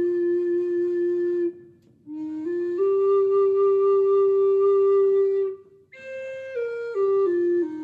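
Solo flute playing a slow melody of long held notes that step up and down. It pauses for breath briefly about 1.5 s in and again near 6 s.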